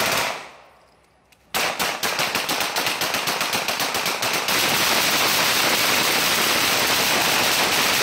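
Guns fired into the air in a rapid string of shots, about ten a second, starting about one and a half seconds in after a brief lull. The shots then merge into a continuous loud clatter.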